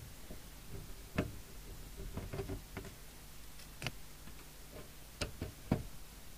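A few light, irregular clicks and taps of a screwdriver and screws against the metal bottom cover of a CB radio base station as the cover screws are taken out.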